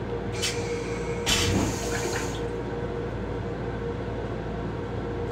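Railcar toilet flushing into its stainless-steel bowl: a short hiss of rinse water, then a louder rushing flush about a second long that starts with a low thump.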